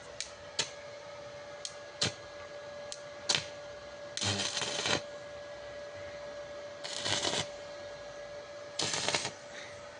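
Small MMA stick welder (CNULOTC MMA 120) striking short arcs: three crackling bursts of about half a second each near the middle and end, like tack welds. A few sharp clicks come before them, and a steady hum runs underneath.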